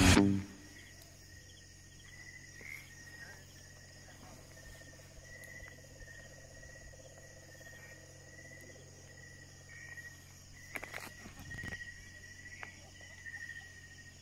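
Night insects, crickets, trilling steadily in one high continuous note that swells now and then, over a faint high insect hiss. A couple of soft knocks come about eleven seconds in.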